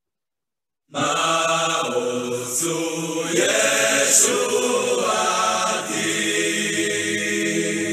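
Silence for about a second, then a group of voices singing together starts abruptly and carries on steadily.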